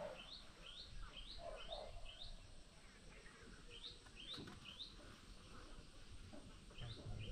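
A bird calling faintly in quick series of short rising chirps, about three a second, stopping for a couple of seconds midway and then starting again.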